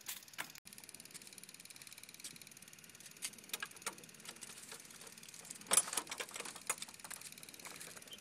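A metal latch on a wooden garden gate being worked, giving scattered light clicks and knocks, the loudest a sharp clack about six seconds in, over a faint steady hiss.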